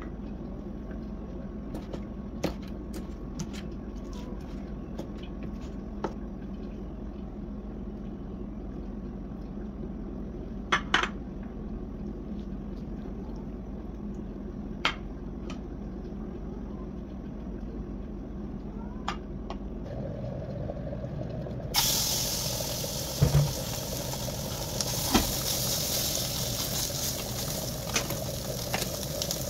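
Steady low hum with scattered light clicks and knocks as pieces of meat and fat are handled. About 22 s in, a steady hiss with crackles starts, with a few sharper knocks: raw sheep's tail fat pieces beginning to sizzle in a hot metal pan.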